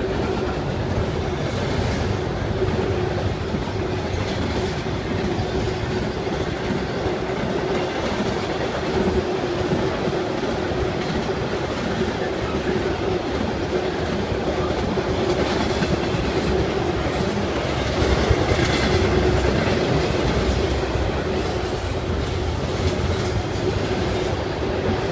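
Freight train cars rolling past steadily, wheels clacking over the rail joints, with a steady tone running underneath.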